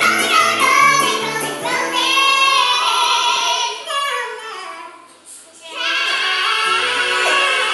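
Music with high voices singing a wavering melody; it drops away briefly about five seconds in, then comes back with a steady low note beneath the singing.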